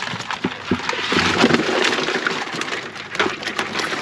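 Live blue crabs poured from a plastic bucket into a plastic cooler, their shells and claws clattering and scraping in a dense rattle of rapid clicks, heaviest about a second in.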